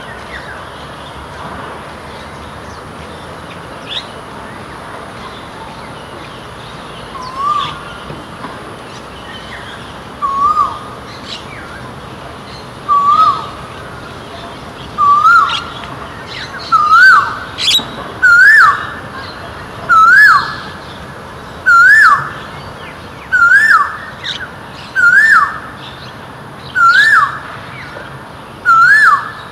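Male Asian koel calling its repeated two-part 'ko-el', starting about seven seconds in. The calls come faster, louder and higher in pitch as the series goes on, the bird's typical crescendo.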